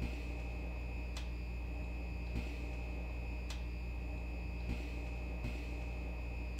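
Steady low room hum with faint short clicks about once a second.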